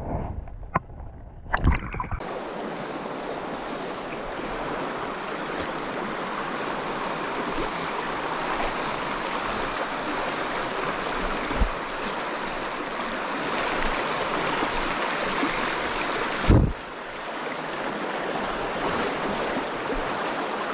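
Shallow river rapids rushing steadily over rocks. A few knocks and bumps come at the start, and a low thump comes about two-thirds of the way through.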